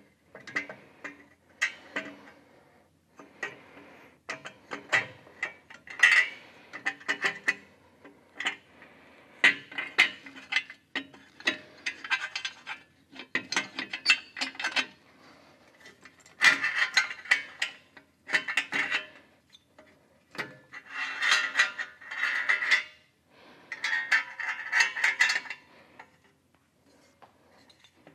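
Metal clinks and knocks of a stainless 2-into-1 exhaust head pipe being worked into place against a Harley-Davidson Dyna's engine, with several stretches of rapid ratchet clicking as the exhaust flange nuts are run on loosely.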